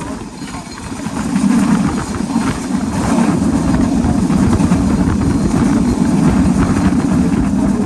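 Running noise of a passenger train coach at high speed, heard from inside by the window: a steady low rumble of wheels and bogies on the track with a fast flutter, getting louder about a second in.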